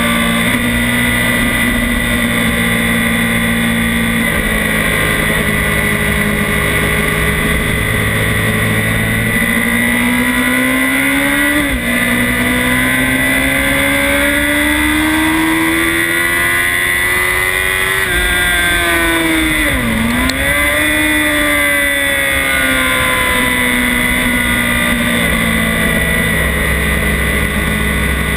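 Honda CBR1000RR inline-four engine running at speed, heard from an onboard camera with steady wind rush. The revs climb, drop sharply once about twelve seconds in as it shifts up, climb again, then fall and dip hard around twenty seconds in before rising briefly and settling.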